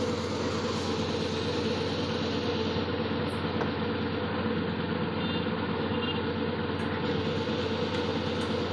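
A 3 hp two-stage, twin-piston air compressor running steadily, a constant mechanical drone with a steady hum.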